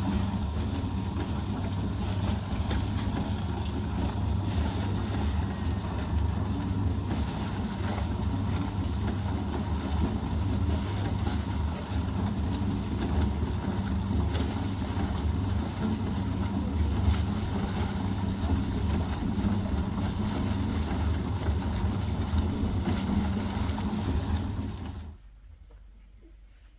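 A car running steadily with a low engine hum under a constant noise. It cuts off abruptly near the end.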